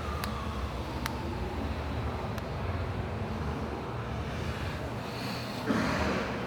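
Outdoor traffic rumble and wind noise on the microphone. A siren's wail falls away in the first second or two. A short, louder rush of noise comes near the end.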